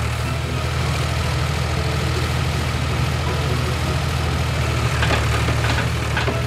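Heavy engine idling steadily with a low, even drone.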